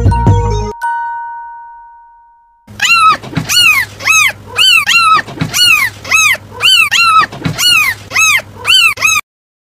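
A small animal calling over and over: about a dozen high, loud yelps, each rising and then falling in pitch, roughly two a second, stopping suddenly near the end. Before them, a music track ends on a held tone that fades away.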